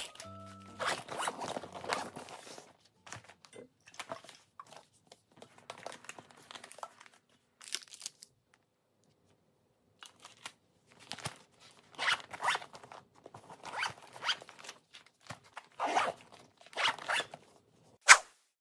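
Zippers of soft insulated lunch bags being zipped in several long rasping strokes, with quieter handling and rustling of packed items between them. A single sharp click comes near the end.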